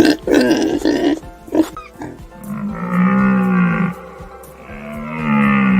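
A few short animal grunts, then a cow mooing twice, two long calls of a bit over a second each.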